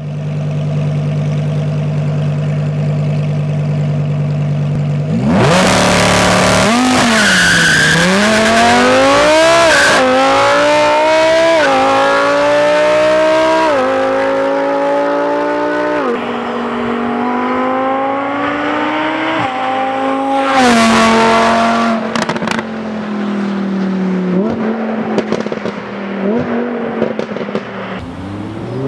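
Lamborghini Huracán's V10 with a Novitec exhaust, idling steadily, then about five seconds in launching hard and revving up through several gears, its pitch climbing and dropping back with each upshift. A loud full-throttle sweep comes at about 21 seconds, then the throttle is lifted and the exhaust crackles and pops on the overrun before the revs rise again near the end.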